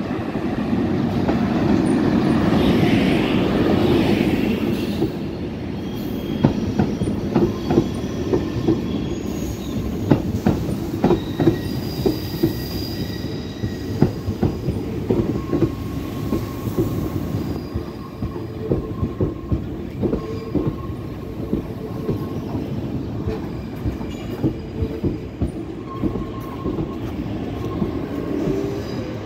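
SNCB Class 27 electric locomotive running past close by, followed by a rake of M6 double-deck coaches. The locomotive goes by with a loud rush in the first few seconds. After that come repeated clicks of wheels over rail joints and thin, steady, high squealing tones.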